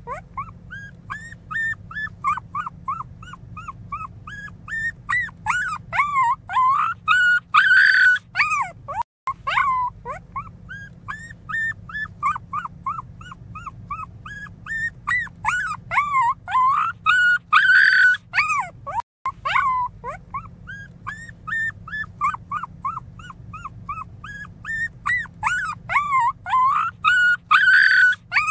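Very young pinscher puppy crying: a continuous string of short, high-pitched whimpering squeals, several a second, each one rising and falling, swelling into louder cries about every ten seconds.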